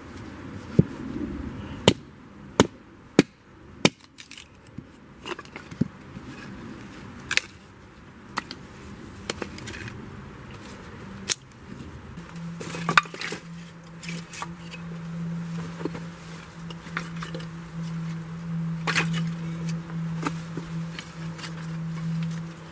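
A bushcraft knife being batoned through firewood: a series of sharp, irregular knocks as the baton strikes the blade and the wood splits. About halfway through, a steady low hum starts and carries on under a few more knocks.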